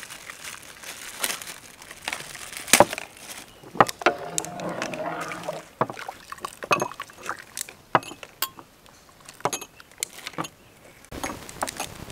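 Metal ladle scooping liquid coconut jelly mixture from an aluminium pot and pouring it into small cups. Scattered sharp clinks and taps of the ladle and cups against the pot, with sloshing and pouring of the liquid.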